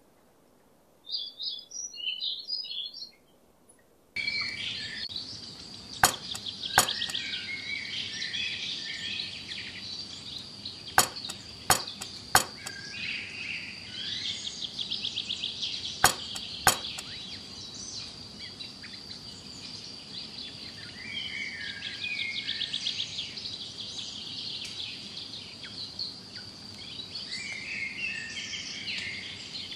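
Birds chirping and calling over a steady high-pitched buzz: a short burst of chirps about a second in, then continuous calls from about four seconds in. Sharp clicks, mostly in pairs, cut through at a few points.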